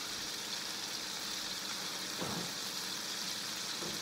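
Brown trout frying in butter in a pan: a steady sizzle, with a faint knock a little after two seconds in.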